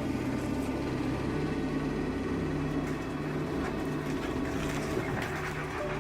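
Heavy-duty scrap-metal baling machine running, a steady mechanical drone.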